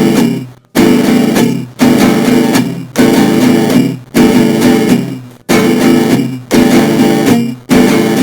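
Guitar music: a chord struck about once a second, each ringing out and fading before the next in an even, repeating pattern.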